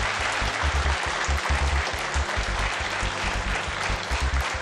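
Studio audience applauding a correct answer, over game-show music with a pulsing low beat.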